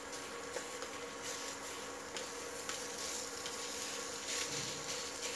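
Wooden spatula scraping and mashing minced chicken filling in a nonstick pan, with soft strokes over a faint sizzle. A steady low hum runs underneath.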